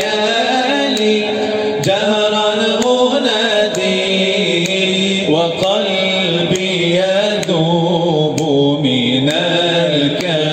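Male voice chanting an Arabic devotional nasheed in long, melismatic, wavering phrases over a steady held low tone.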